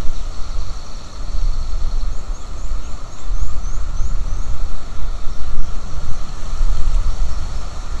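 Wind buffeting the outdoor nest-camera microphone, a heavy gusting rumble. About two seconds in, a small bird gives a quick series of high, falling notes.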